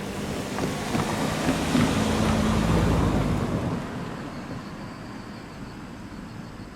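Ome Line electric train passing over the level crossing: wheels clicking over the rail, with a steady motor hum. The sound peaks about two to three seconds in, then fades as the train moves away.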